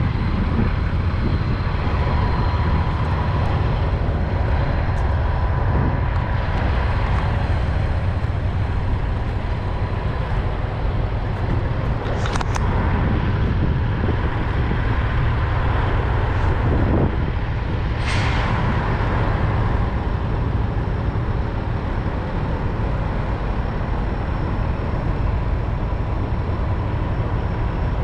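Truck stop ambience: a steady low rumble of diesel semi trucks running, with two short hisses about 12 and 18 seconds in.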